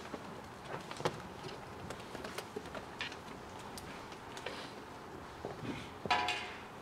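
Footsteps on a stage and scattered small clicks and knocks in a hushed room, with a brief pitched sound about six seconds in.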